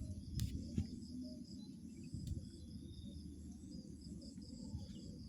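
Insects, likely crickets, chirping in a fast, even pulse with a steady high buzz above it, over a low rumble. A single sharp click sounds about half a second in.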